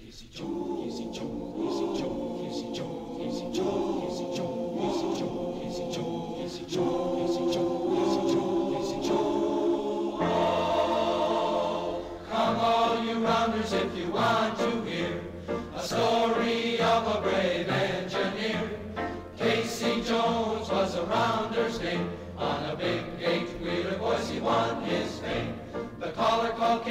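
Choir singing without clear words, held chords changing every second or two. About ten seconds in it grows louder and fuller, moving into a livelier passage with a pulsing bass part.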